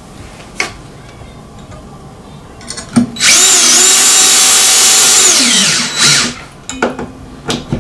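Power drill driving a screw through a steel shade-mounting bracket into the wooden window frame. The drill whines as it spins up about three seconds in, holds steady for about two seconds, then winds down, followed by a few short bursts near the end.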